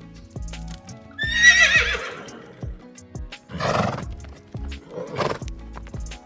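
A horse whinnies once with a high, quavering call that falls in pitch, then gives two shorter, lower calls, over background music with a steady beat.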